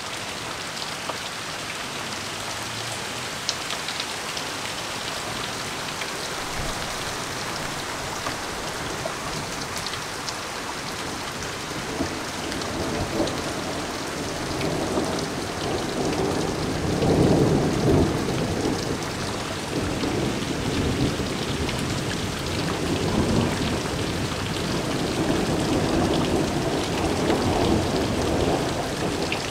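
Heavy thunderstorm rain pouring steadily, with thunder rolling in about twelve seconds in, loudest a little past halfway, and rumbling on until near the end.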